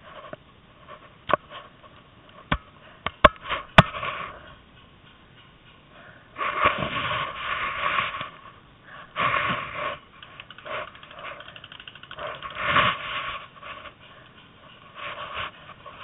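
A paintball player's heavy, rasping breathing in several separate bursts, after a few sharp pops in the first four seconds.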